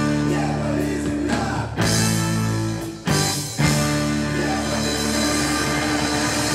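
Live band music: electric guitars and a wind instrument playing long held chords, which cut off sharply twice a few seconds in before they come back.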